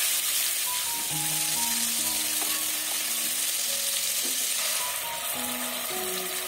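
Ground chili-garlic spice paste sizzling steadily in hot cooking oil in a nonstick wok, being sautéed until fragrant.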